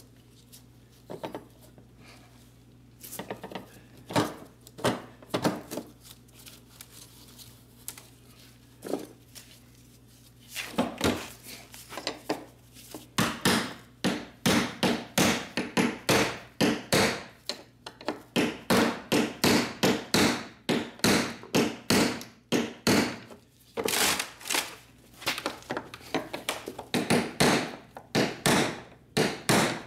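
Ball-peen hammer tapping the fuel pump's lock ring around on a plastic fuel tank to seat and lock it. A few scattered knocks at first, then a steady run of sharp taps about two a second from about halfway on.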